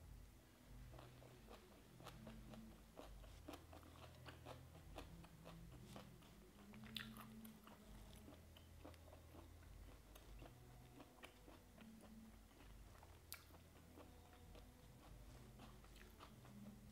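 Close-miked chewing and crunching of banana flower salad: a run of soft, crisp crunches and wet mouth sounds, with a couple of sharper crunches.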